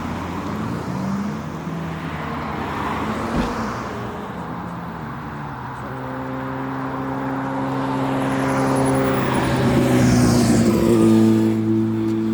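Car engines running: a steady engine hum, joined about six seconds in by another engine idling, while a car drives past and swells loudest about ten to eleven seconds in.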